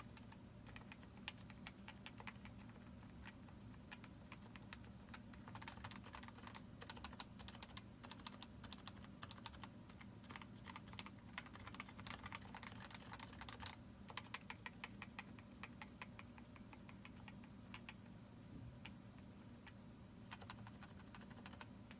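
Typing on a Leopold FC660C Topre electrostatic capacitive keyboard with PBT keycaps and unlubricated sliders and stabilisers. Scattered keystrokes at first, fast runs of keystrokes from about six to fourteen seconds in, then sparser again.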